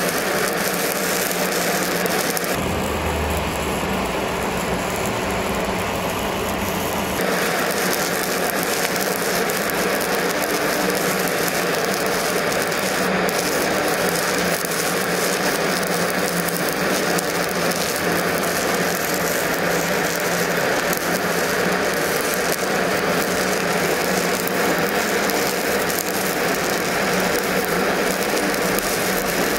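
Electric arc welding on steel: the arc gives a steady crackling hiss as the weld bead is run. For a few seconds near the start a low hum joins it.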